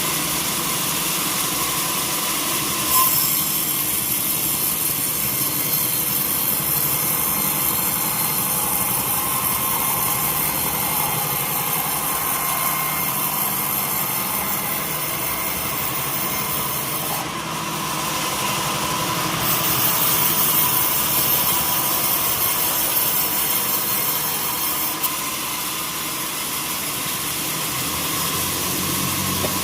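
Sawmill saw running and cutting through a teak log: a steady machine hum, with a high hissing cut that starts about three seconds in, breaks off briefly past the middle, and stops a few seconds before the end.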